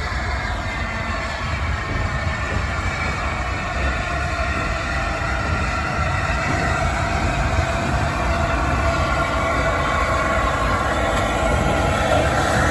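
A4 Pacific steam locomotive 60007 Sir Nigel Gresley and its coaches running over a bridge, a continuous train noise that grows steadily louder as it approaches.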